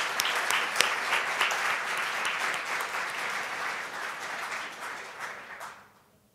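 Audience applauding, with many hands clapping at once, fading away about a second before the end.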